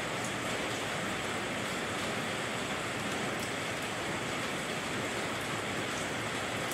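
Steady rain falling, an even hiss that stays the same throughout.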